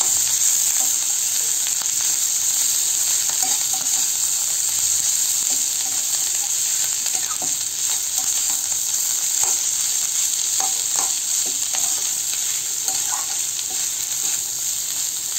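Chopped banana blossom frying in oil over a low flame in an aluminium kadai: a steady sizzle, with a spatula stirring and scraping it against the pan now and then.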